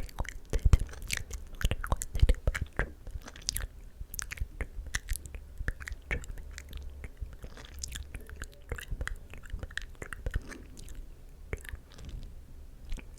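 ASMR mouth sounds: rapid, irregular clicks and smacks of lips and tongue.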